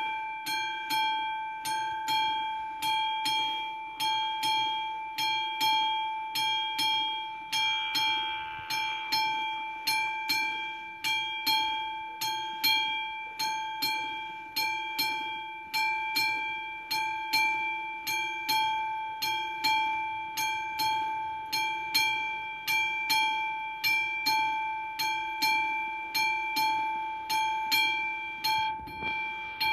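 Classic mechanical warning bell of an AŽD 71 level-crossing signal, struck over and over in a steady, rapid rhythm, each stroke ringing on. It is warning that a train is approaching the crossing.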